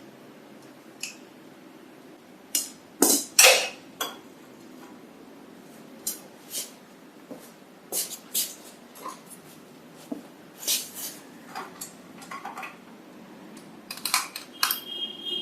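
Scattered clinks and clatters of small metal parts and hand tools being handled while a voltage stabilizer's servo motor assembly is taken apart, with the loudest cluster about three seconds in.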